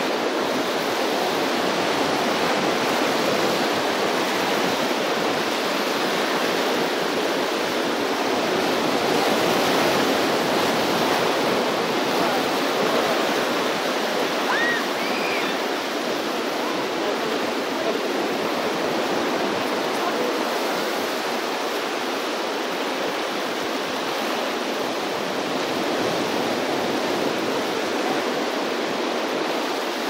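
Ocean surf breaking on the shore: a constant rushing wash of waves, slightly louder about ten seconds in.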